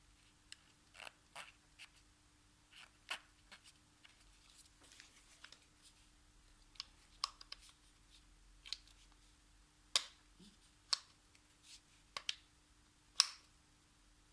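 Handling noises: scattered light clicks and taps at irregular intervals, as parts and packaging are picked up and set down. A faint steady hum runs underneath.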